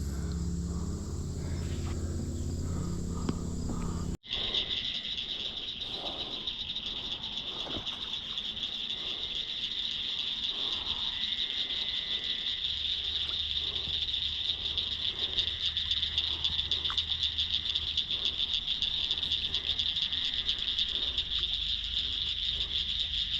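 A steady chorus of insects trilling in a fast, even pulse, starting abruptly about four seconds in; before that, a steady low hum.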